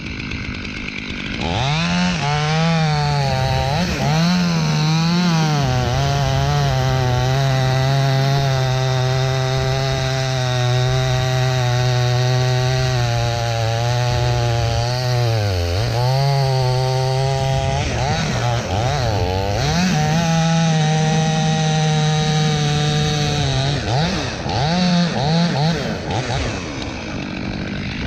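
Chainsaw cutting wood from the trunk of a dead tree. It revs up about a second and a half in and holds a steady high note, dips sharply under load about halfway through and recovers, then drops back and revs up again twice toward the end.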